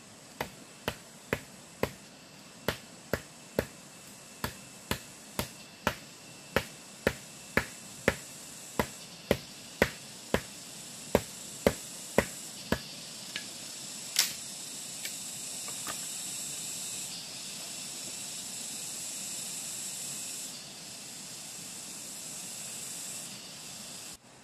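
A hand blade chopping at a pole on the ground: sharp knocks about twice a second for some thirteen seconds, one harder blow near fourteen seconds, then a few faint taps. After that a steady high hiss carries on until a sudden cut.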